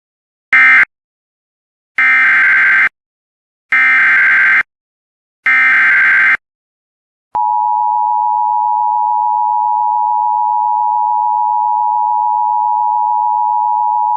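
Emergency Alert System tones. The last of three short SAME data bursts that end the previous alert comes first, then three longer SAME header data bursts that open the next alert. From about seven seconds in, the steady two-tone EAS attention signal holds.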